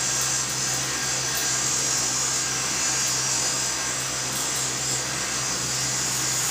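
Cotton candy machine running: a steady motor hum with a high hiss as the spinning head throws out sugar floss very fast.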